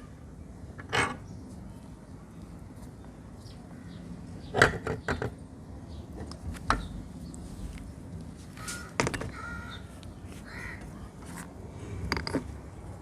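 Harsh cawing calls, several of them a few seconds apart, over a steady low background noise.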